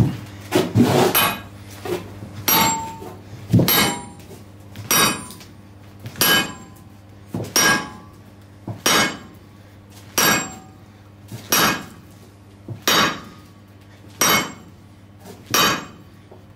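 Hammer blows driving a punch through a red-hot 60 mm thick steel plate, struck at a steady pace of about one blow every second and a quarter. Each blow lands with a sharp metallic clang that rings briefly.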